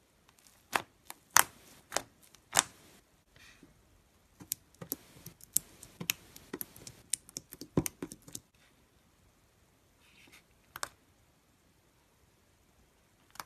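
Slime being pressed and poked with fingers, clicking and popping sharply: four loud pops in the first few seconds, then a quicker run of smaller clicks, and one more pop near the end.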